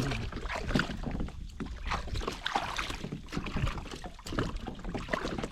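Water splashing with irregular knocks and clatter at a kayak, as gear and a broken fish trap are handled at the boat's side.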